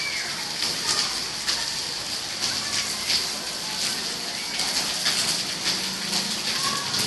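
Heavy rain falling in a steady hiss, with many separate drops splashing close by. A few short bird calls come through the rain.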